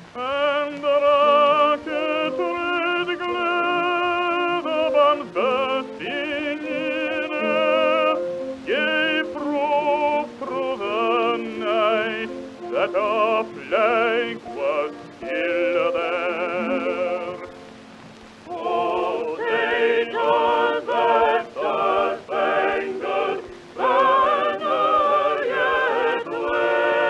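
Operatic-style sung music: a voice holding long notes with strong vibrato over musical accompaniment, easing briefly about two-thirds of the way through before resuming.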